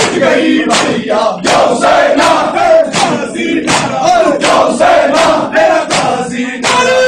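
Group of Shia mourners performing matam: men's voices chanting together in a loud, wavering lament, over hand slaps on the chest in a steady beat of about two a second.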